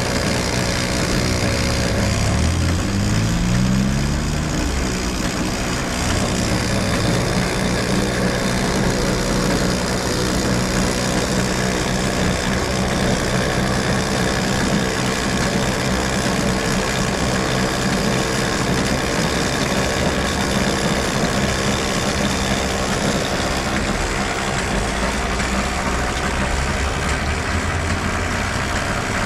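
Bicycle-powered cotton candy machine spinning, a steady mechanical whirring hum. Its pitch rises about two to four seconds in as the spinner head speeds up, then it holds steady.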